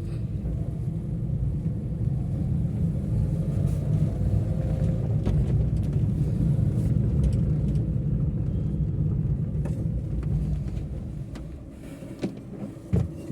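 Maruti Suzuki Eeco van on the move: steady low rumble of its engine and road noise, running smoothly now that a throttle body cleaning and recalibration has cured its rpm fluctuation. The rumble eases off about ten seconds in, with a few light knocks near the end.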